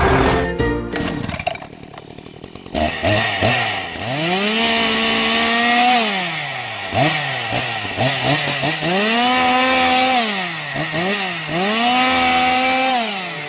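Chainsaw revving: its pitch climbs quickly, holds at full throttle, then drops back, three long times with short blips of throttle between.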